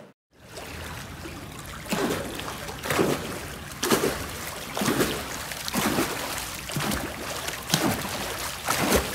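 A swimmer doing backstroke in a pool, each arm stroke splashing into the water about once a second, over a steady wash of lapping water.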